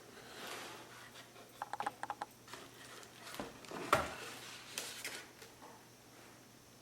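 Packaging being handled and opened by hand: paper and cardboard rustling, a quick run of small clicks, and one sharp knock about four seconds in.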